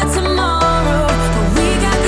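Background pop music with a steady bass line and a sung melody.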